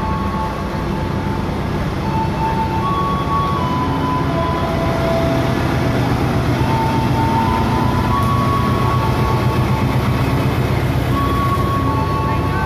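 Station bell chime playing a slow melody of held single notes, over the steady low rumble of a KAI diesel-hauled passenger train rolling past the platform.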